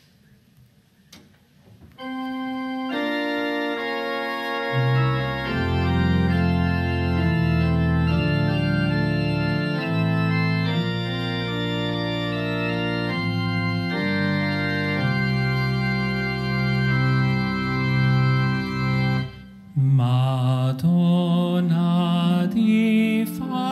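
Organ playing a hymn introduction of slow, sustained chords after a brief hush, with deep bass notes coming in a few seconds later. Near the end a singing voice with vibrato comes in over the organ as the hymn begins.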